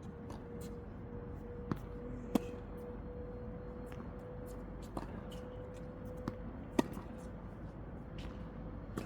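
Tennis rally: sharp pops of a tennis ball struck by rackets and bouncing on the court, about six separate hits spread irregularly, with a faint steady hum underneath.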